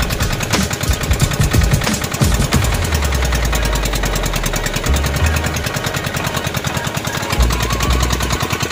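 Boat engine running with a fast, even beat, with wind buffeting the microphone at times.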